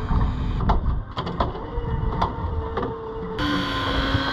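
Electric fishing reel's motor whining steadily as it winds in line, with a run of sharp clicks and knocks, over wind on the microphone; the sound changes abruptly about three seconds in.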